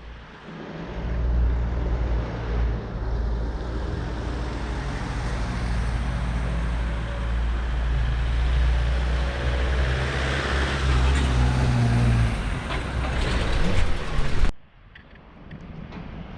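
A motor vehicle's engine running close by with traffic noise, a loud, steady low rumble. It cuts off suddenly about fourteen and a half seconds in, leaving fainter wind and surf.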